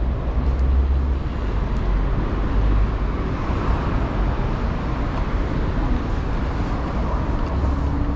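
City street traffic: a steady wash of passing cars and buses with a low rumble underneath, one vehicle swelling louder as it passes about midway.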